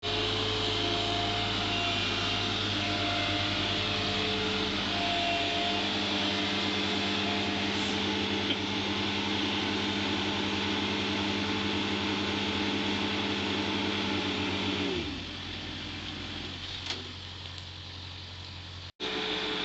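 A vehicle engine running steadily. About fifteen seconds in, its pitch drops as it winds down, and the sound continues more quietly.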